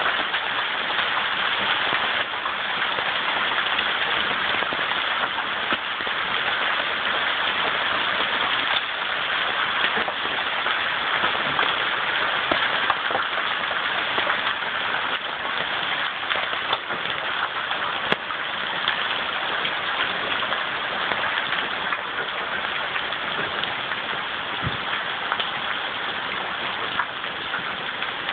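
Hail and heavy rain pelting the ground: a dense, steady hiss with many sharp clicks of individual hailstones striking.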